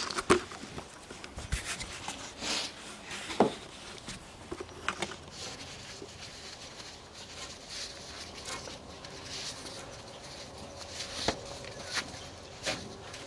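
Thick cotton rope being tied fast into a quick-release knot around a wooden fence rail: irregular rustles, scuffs and light knocks of rope and gloved hands against the wood.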